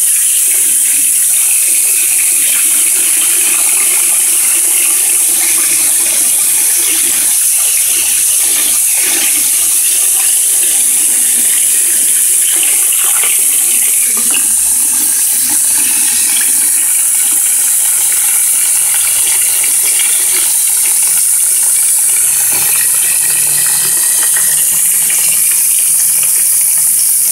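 Water from a garden hose spray nozzle splashing steadily into a plastic bin of water onto a submerged wire grill rack: an even, unbroken rush of splashing.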